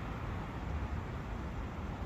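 Steady forest ambience of wind and a running brook: a constant even rush with a strong low rumble.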